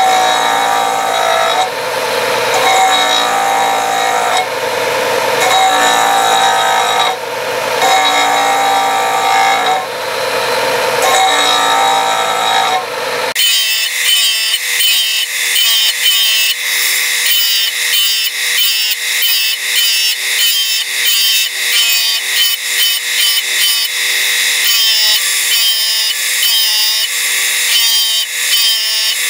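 Ryobi disc sander grinding facets into a clear resin egg pressed against its spinning disc, the tone dipping each time the egg is pushed on, about every two seconds. About halfway through the sound changes abruptly to a thinner, quicker run of short grinding contacts, several a second.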